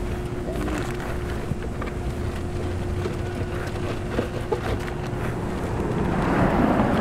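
Brown paper bags and plastic water bottles handled in a car's cargo area, with light rustles and clicks over a steady low rumble and a constant hum. A louder rush of noise builds near the end.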